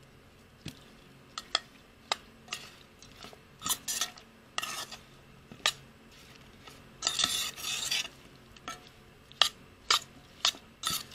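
A hand mixing small whole fish with dry spice powder in a metal bowl: irregular clinks and knocks of the fish and hand against the bowl, with short wet scraping rubs. The longest scrape comes a little past halfway.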